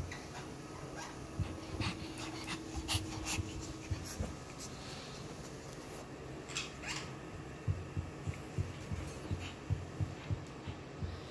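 Pekingese dogs moving about on a fabric sofa, with soft dog sounds. Scattered sharp clicks come through the first half, and short low thumps at about three a second fill the second half.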